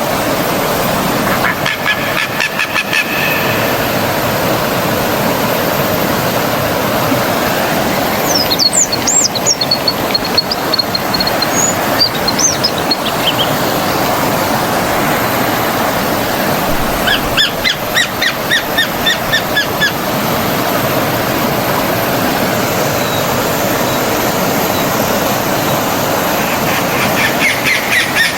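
Stream water running steadily, with birds calling over it: bursts of fast repeated call notes near the start, around two-thirds of the way through and again at the end, and high whistled chirps about a third of the way in.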